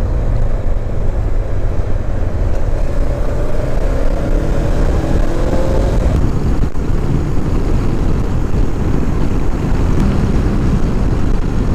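Honda CB500X's parallel-twin engine running at a steady cruise, under wind rushing over the microphone.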